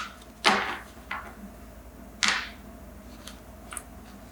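Tarot cards being handled on a table: two short swishes of cards sliding, with a few light clicks after them.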